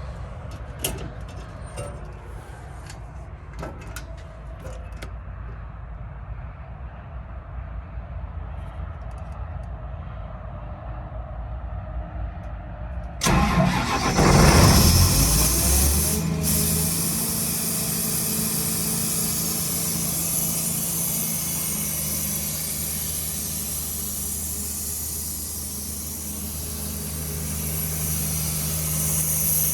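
John Deere six-cylinder diesel engine of an Ingersoll Rand 7/170 N mobile compressor being cranked and starting about halfway through, after a low rumble with a few clicks. It catches with a loud burst, then settles into a steady idle.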